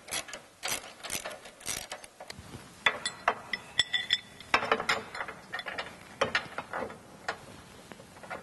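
Hand ratchet with an 18 mm socket on an extension clicking in short irregular runs as a fuel-tank mounting bolt is worked loose, with a few light metallic clinks of the bolt and socket.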